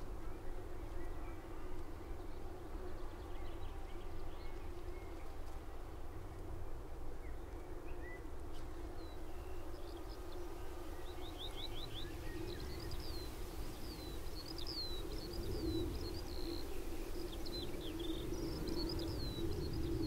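Skylarks singing high, twittering song that grows busier about halfway through, with rapid trills among the chirps. Under it runs a steady insect buzz and the low rumble of distant traffic.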